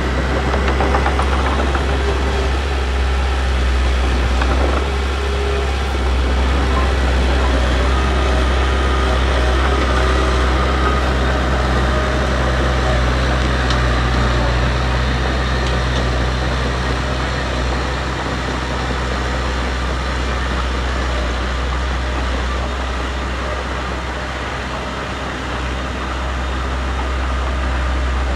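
Diesel engine of heavy earthmoving machinery running steadily at a constant deep pitch.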